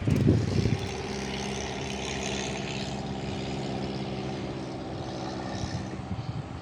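Low buffeting for the first second, then a steady engine drone holding an even pitch.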